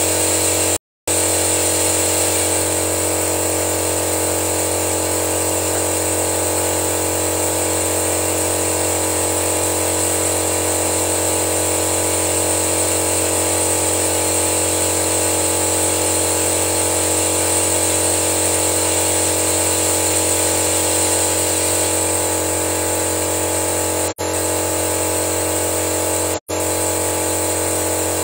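Petrol car engine running steadily at idle during a carbon-cleaning flush, a constant low hum under a strong high hiss. The sound cuts out for an instant three times.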